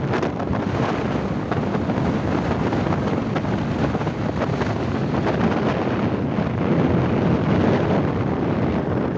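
Wind buffeting the microphone of a moving vehicle, a steady noise with the vehicle's road and engine noise beneath it.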